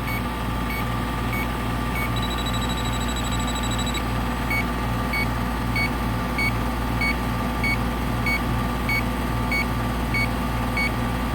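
Electronic refrigerant leak detector ticking with short beeps about one and a half times a second. From about two to four seconds in it switches to a rapid, higher-pitched beeping, the alarm that it has picked up refrigerant at a dripping drain line. A steady machine hum runs underneath.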